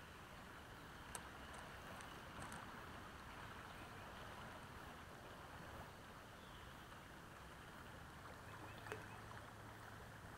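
Near silence: a faint, steady outdoor background hiss with a few faint ticks.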